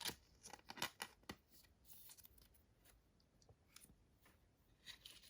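Faint handling of clear acetate Clearly Donruss trading cards: soft rustles with a few sharp little clicks in the first second and a half and again near the end.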